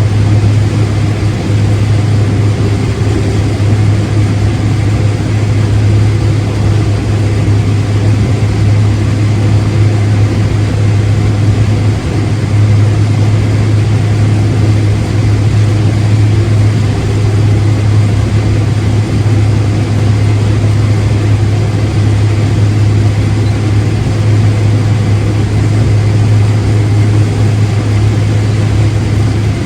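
A heavy farm machine's engine running loudly and steadily, a constant low drone with no change in speed.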